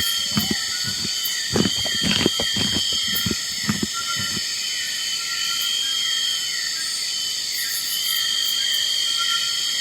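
Steady insect chorus, a high continuous buzz with short chirps repeating over and over. In the first half, several short low sounds come in a quick series, then stop about halfway through.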